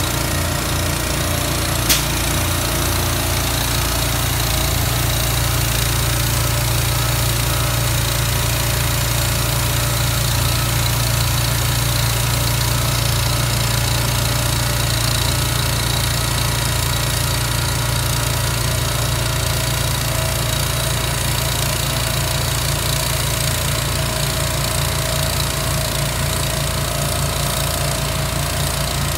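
Container delivery truck's engine running at a steady idle, with an even low pulsing beat. A short sharp click sounds about two seconds in.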